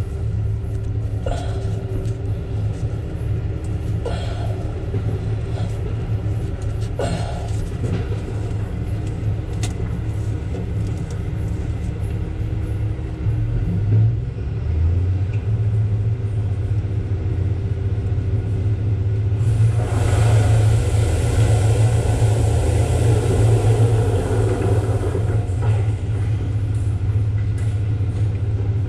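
Heavy-equipment diesel engine running steadily with a low rumble, with a few light clicks of metal fittings being handled. About twenty seconds in, a louder rushing noise swells over it for about five seconds.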